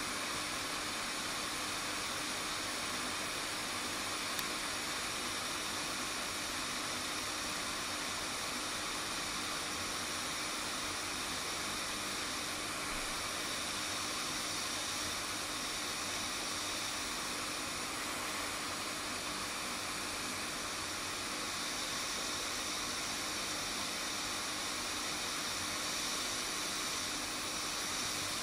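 JBC hot-air rework station blowing a steady hiss of air at about 300 °C onto a circuit board, heating the solder to desolder a charging connector.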